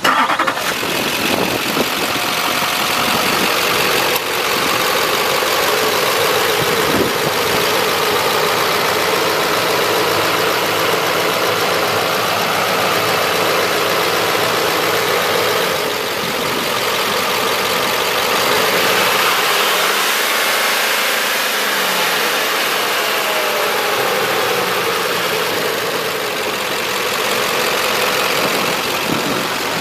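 An engine running steadily at idle, with a wide, even hiss over it.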